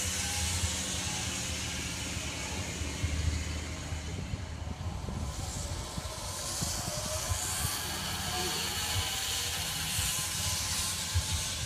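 Zipline trolley pulleys running along a steel cable: a high whirring hiss that swells and fades several times, over a steady low rumble.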